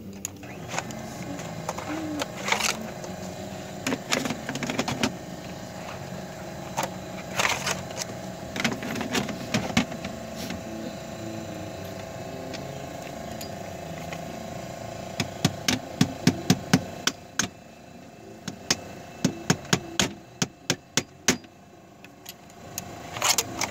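Hammer striking nails into wood and vinyl trim: scattered single knocks, then a quick run of about a dozen blows in the middle and more near the end, over a steady hum.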